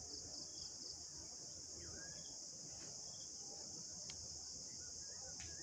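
Steady, high-pitched chorus of insects in the vegetation.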